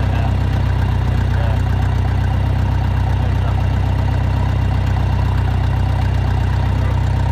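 Gasoline tractor engine running steadily at a low, even speed.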